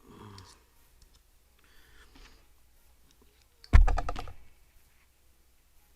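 Handling noise from a hard drive and a small Torx screwdriver being picked up and moved: light clicks and rattles, then a loud knock with a short clattering run of clicks a little before four seconds in.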